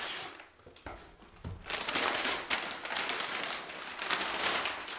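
Brown kraft packing paper rustling and crinkling as it is handled and pulled out of a cardboard box, a dense run of crackles starting about a second and a half in.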